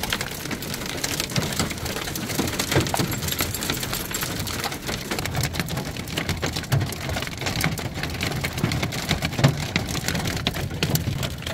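Hail and heavy rain pelting the metal bodywork and roof of a converted van, heard from inside the cab: a dense, continuous patter studded with many sharp individual hailstone impacts.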